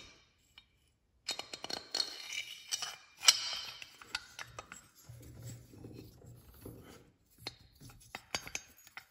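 Metal parts clinking, tapping and scraping as a cylinder and a steel stud are handled against a Piaggio Ciao aluminium crankcase, with one sharper clink about three seconds in.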